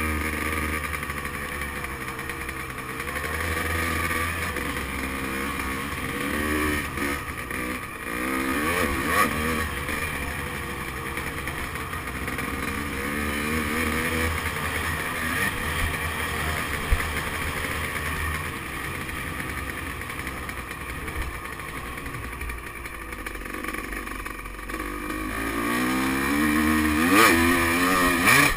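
Dirt bike engine running under way, its pitch rising and falling with the throttle and revving up near the end. A few sharp knocks are heard, one about two thirds of the way in.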